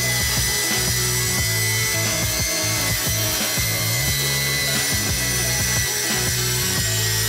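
Makita GA5030 angle grinder with a saw blade, set in a homemade circular-saw base, running steadily as it cuts through plywood, with a music track over it.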